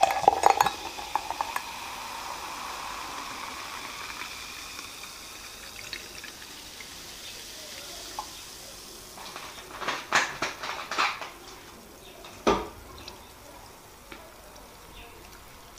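Sprite poured from a plastic bottle into a glass mug, splashing for about a second and a half, then the soda fizzing in the glass with a steady hiss that slowly fades. About ten seconds in come a few sharp clicks, and a single knock follows a couple of seconds later.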